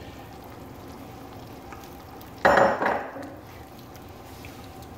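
Wooden spoon stirring chunks of chicken into a stainless steel stockpot of gumbo, over a faint steady hiss, with one louder clatter about two and a half seconds in.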